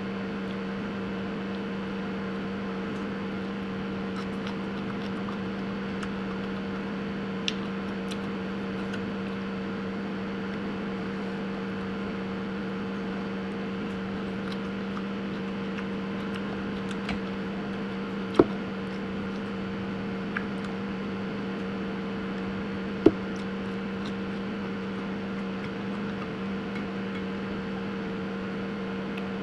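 A steady machine hum with two constant tones, one low and one higher, over a faint hiss. A few short clicks or knocks come through it, the sharpest about 18 and 23 seconds in.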